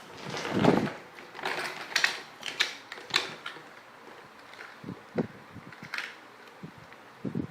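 Plastic toy trucks being handled: irregular clicks, knocks and rustling of hard plastic parts, with a longer rustle about half a second in.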